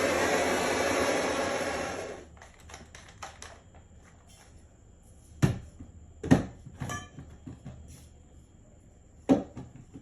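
Soldering torch hissing steadily, then shut off about two seconds in. A few scattered sharp clicks and knocks follow.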